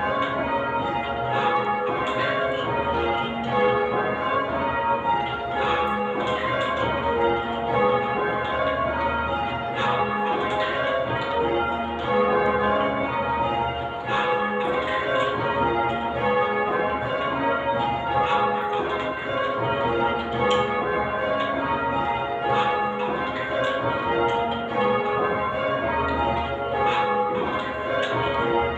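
Ring of eight church bells (a Whitechapel-cast octave, tenor about 10 cwt in A-flat) rung full-circle in call changes, the bells striking one after another in a continuous, even rhythm with their tones ringing on over each other.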